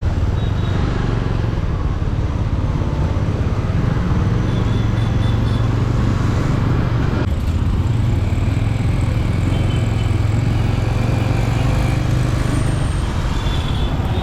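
Steady loud rumble of a motorcycle ride through city traffic: the TVS Apache RTR 200 4V's single-cylinder engine running at a steady pace under wind and road noise.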